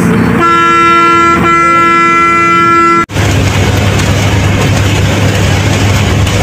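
Inside a bus, a horn sounds one long, steady blast lasting about two and a half seconds. It breaks off abruptly and gives way to a steady, low engine rumble.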